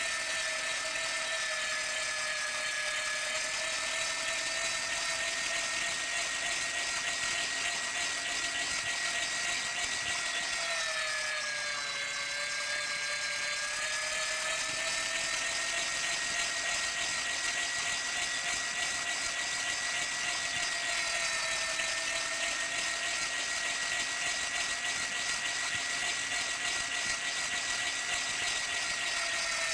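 Small electric power-tool motor running with a steady high whine; its pitch sags briefly about twelve seconds in, then recovers.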